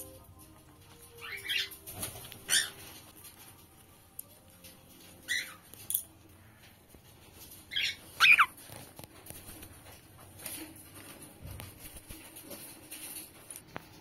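Cockatiels chirping: short calls in pairs, about two seconds in, about five seconds in and loudest about eight seconds in, over faint background music.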